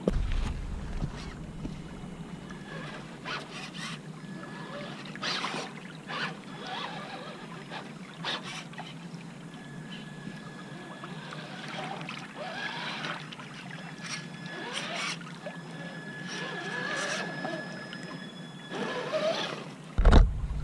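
Water splashing and sloshing as a Traxxas TRX-4 RC crawler drives through a shallow rocky creek, with a thin whine from its electric motor coming and going with the throttle. A loud thump near the end.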